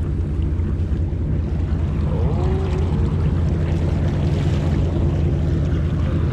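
Boat's engine running, a steady low drone, with wind on the microphone.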